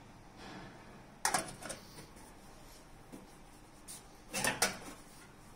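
Clicks and knocks from handling the brass helmet of a magnetic compass binnacle as its viewing flap is worked: a short cluster about a second in and a longer one near the end.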